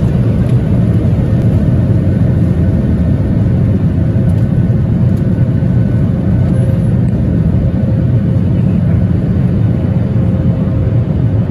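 Loud, steady low rumble inside a jet airliner's cabin during the takeoff, from the engines at takeoff power, with a faint steady hum over it.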